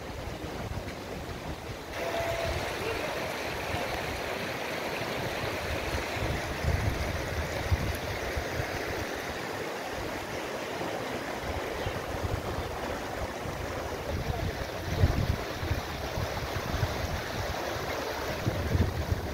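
A rocky mountain river rushing steadily over stones, growing louder about two seconds in, with wind buffeting the microphone a few times.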